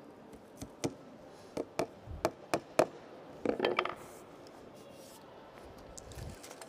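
A hand tool knocking on wooden kumiko strips clamped in a planing jig: about seven sharp wooden taps over three seconds, the loudest near the end of the run. Then comes a brief rubbing scrape of hands or tool on the wooden board.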